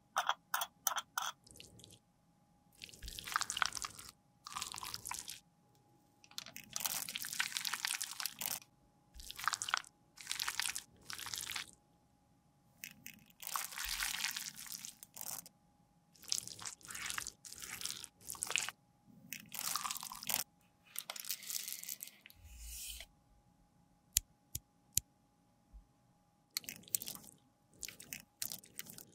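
Thin plastic piping bag crinkling and rustling in repeated short bursts as liquid foundation is pressed and squeezed inside it. There are a few quick sharp clicks at the start and a couple of sharp clicks later on.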